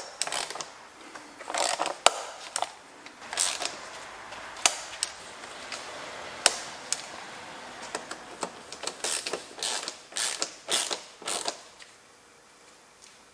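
A ratchet wrench clicking in short, irregular runs as the transmission oil pan bolts are run down to 4 Nm. The clicks thin out and fade near the end.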